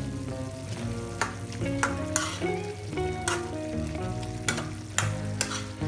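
Metal spoon stirring and scraping in a metal pan while chicken innards and spring onions sizzle in sauce. There are several sharp clinks of spoon on pan, over a soft background melody.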